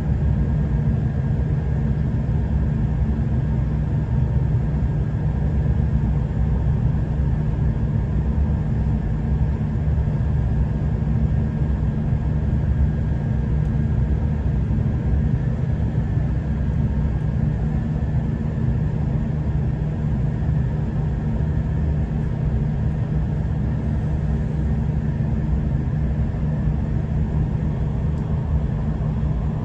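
Steady low rumble of a V/Line diesel passenger train running along the line, heard from inside the carriage, with a faint steady whine over it.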